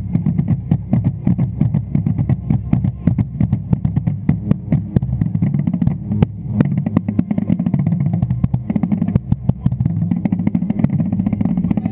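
A marching drumline's five tuned Yamaha bass drums, from small to large, playing a fast, dense warm-up break, with a rapid, unbroken run of low strokes.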